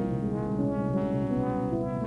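Title theme music led by brass, playing long held chords that change a couple of times.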